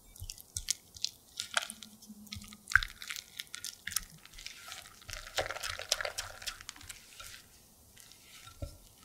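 Silicone spatula stirring beaten egg into creamed butter in a glass bowl: irregular wet squishing with light clicks, busiest a little past the middle and dying down near the end.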